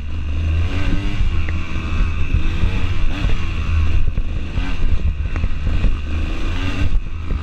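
Off-road dirt bike engine running hard on a rough trail, the revs rising and falling repeatedly with the throttle, heard close up from a camera on the bike, with frequent short knocks throughout.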